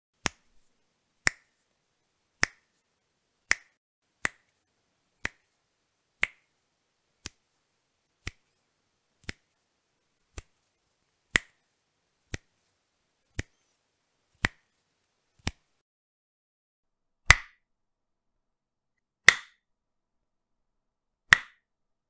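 Single finger snaps, one at a time about once a second with silence between them; near the end three louder snaps come about two seconds apart.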